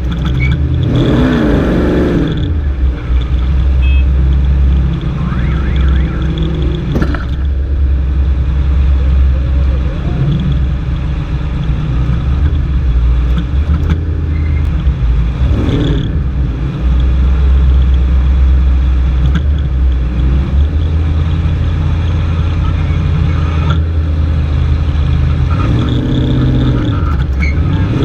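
Off-road race vehicle's engine running loud and steady, its pitch rising and falling as it revs, with a few sharp knocks along the way.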